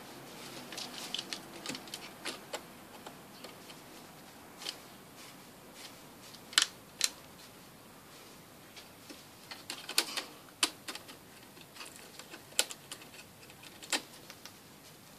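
Hooded crow pecking and tapping its beak against a rattan chair: irregular sharp clicks and knocks, a few much louder than the rest.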